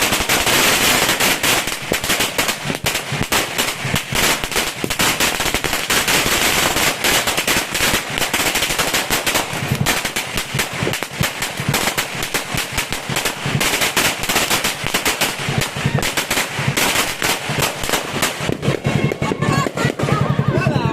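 A long firecracker string, a sinturon ni Hudas ('Judas' belt'), going off in a continuous rapid crackle of bangs.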